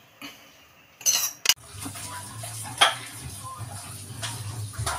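Steel spoon scraping and knocking against the metal pressure-cooker pot while biryani is turned and served: a quick cluster of scrapes and clicks about a second in and a sharp knock near three seconds.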